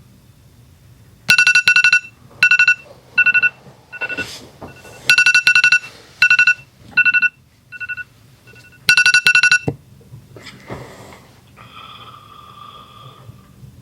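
Electronic alarm tone ringing: a single high pitch pulsed in rapid trills, coming in repeated groups for about eight seconds, then stopping.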